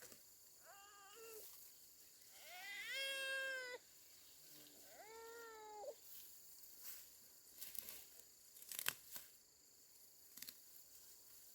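Three short high-pitched animal calls, each rising then falling in pitch, the second the longest and loudest; a few faint clicks and taps follow about halfway through.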